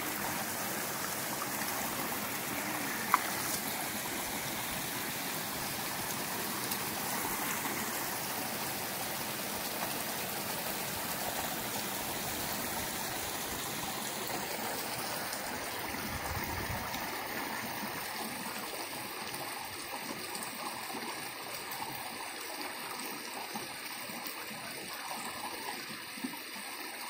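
A shallow rocky creek running steadily over stones. A single sharp click sounds about three seconds in.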